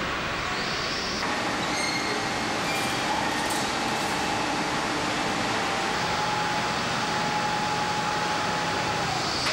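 Steady mechanical running noise: an even hiss with a faint, held whine above it.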